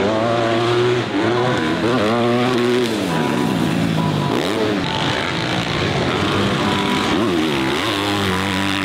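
Motocross dirt bike engines revving hard on the track, their pitch repeatedly climbing and dropping with the throttle.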